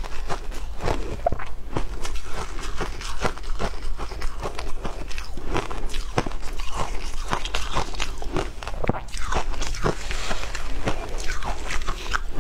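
Frozen shaved ice being crunched and chewed close to the microphone: a dense, irregular run of crisp crackles and cracks.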